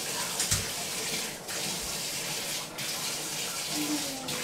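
Water running steadily from a tap as a French bulldog is washed, with a few brief breaks in the flow.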